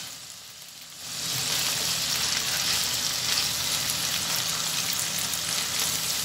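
Thinly sliced onion and garlic sizzling in hot oil in a frying pan as a spatula stirs them. The sizzle is faint for the first second, then comes up about a second in and holds steady.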